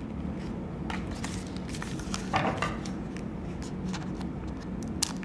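Scissors snipping open a foil trading-card pack, with light crinkling of the wrapper and small clicks of handling, over a steady low hum.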